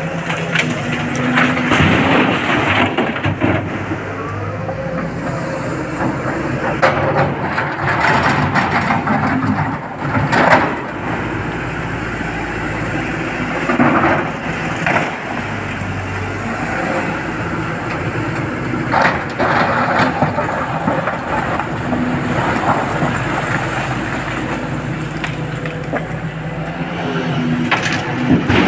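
SANY hydraulic excavator's diesel engine running under load, with repeated loud crashes and scrapes of rock and the steel bucket every few seconds.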